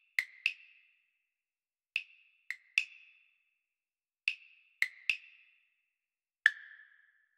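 Short, sharp wood-block-like percussive clicks, each with a brief pitched ring. They come in quick sets of three about every two seconds, and a single click near the end rings a little longer and lower.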